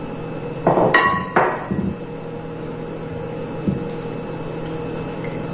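Kitchenware clinking: a few quick knocks of a small ceramic bowl and spatula against the saucepan and worktop about a second in, then one light tap later, over a steady low hum.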